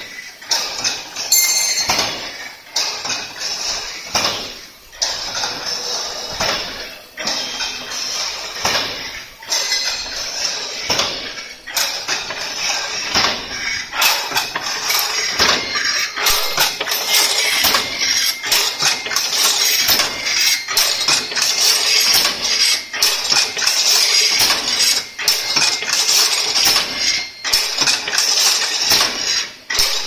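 Crimped wire mesh weaving machine running: a dense metallic clatter with rapid knocks several times a second, louder in the second half.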